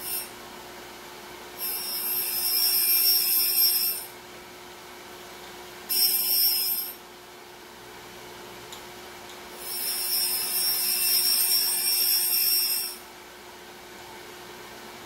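Diamond dresser being passed across the spinning wheel of a Central Machinery surface grinder, dressing the wheel sharp and true. It makes three passes of high hiss, roughly two and a half, one and three seconds long, over the steady hum of the running spindle.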